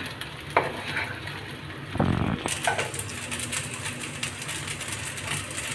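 Wooden spatula stirring sago pearls and potato in a nonstick kadai over the flame, with a knock against the pan about two seconds in. After that comes a soft, crackly sizzle of frying, over a steady low hum.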